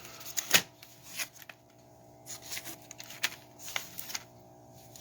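Paper and cardboard firework packaging being handled: light rustling with a few sharp clicks and taps, the loudest about half a second in.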